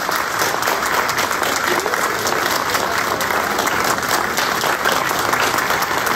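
Audience applauding steadily, with many hands clapping, as the valedictorian is welcomed.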